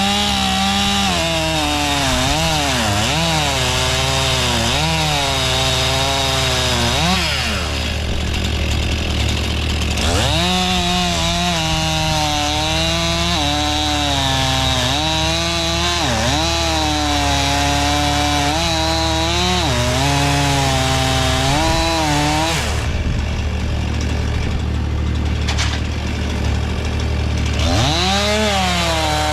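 Two-stroke chainsaw cutting wood, its engine pitch rising and falling under load. It drops back to idle twice, for a couple of seconds about a third of the way in and for several seconds late on, then revs up again near the end.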